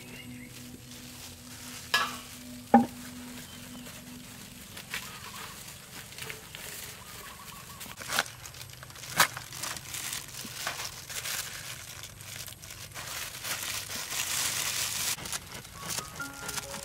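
Cleaver cutting into a jackfruit's tough, knobbly rind at the stem end: a few sharp knocks of the blade, the loudest about three seconds in, with more around eight and nine seconds. Between and after them come quieter crackling and scraping as the blade works through the rind and flesh.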